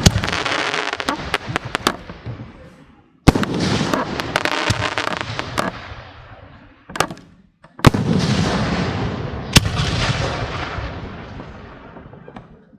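Aerial firework shells bursting: four or five sharp bangs a few seconds apart, each followed by a long crackling hiss that slowly fades.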